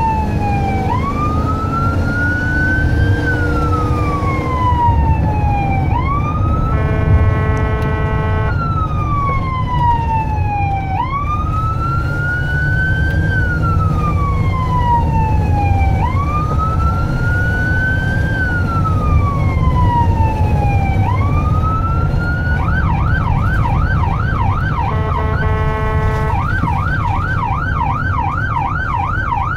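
Ambulance's electronic siren heard from inside the cab on a code 3 run. It plays a slow wail rising and falling about every five seconds, then switches to a fast yelp about three-quarters of the way through. A steady horn blast of about a second and a half comes twice, about seven seconds in and again near the end, over low engine and road rumble.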